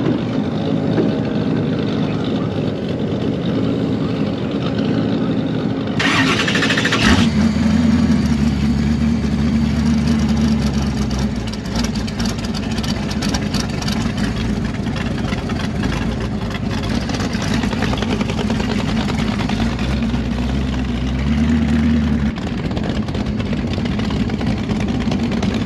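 Boss Hoss V8 motorcycle engines running at a low, steady idle. About six seconds in there is a short loud rush, then a deeper idle comes in and holds for a few seconds.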